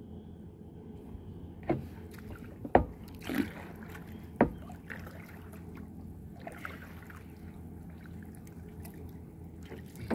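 Sharp knocks on a wooden outrigger canoe's hull as a fishing handline is hauled in by hand over the side: four knocks in the first half, then fainter scuffs and rubbing, over a steady low background.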